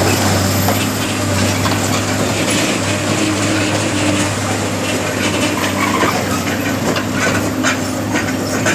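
Heavy machinery running steadily with a constant low hum and irregular metallic clattering.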